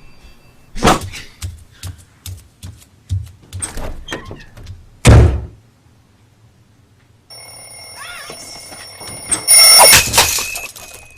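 Cartoon sound effects: a quick run of knocks and thuds ending in one heavy thump about five seconds in. After a short silence an alarm clock's bell starts ringing, steady, and swells loud near the end.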